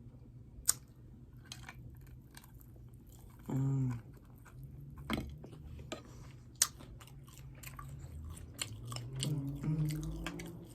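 A person chewing and biting hot chicken wings close to the microphone, with wet mouth clicks and smacks. A short hummed "mm" comes about three and a half seconds in, and another near the end.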